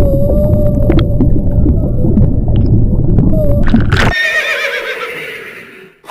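A horse whinnying: a long, quavering neigh that starts about four seconds in and fades away. Before it there is a dense, low rumbling noise.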